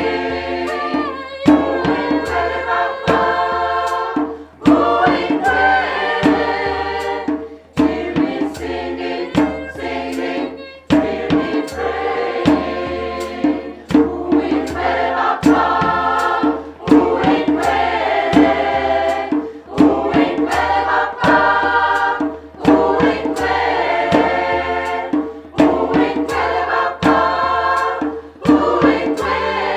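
Mixed-voice amateur choir singing a rhythmic African choral piece in several parts, phrases breaking off every few seconds, with sharp percussive beats keeping time.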